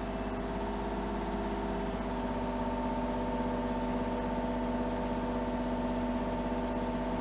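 Kubota mini excavator's diesel engine running steadily as the operator works the hydraulic controls.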